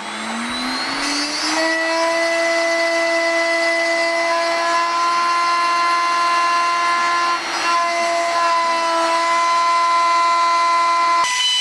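CNC router spindle motor spinning up with a rising whine over the first second or so, then running at a steady high-pitched whine. There is a brief dip about seven and a half seconds in, and the sound changes abruptly near the end.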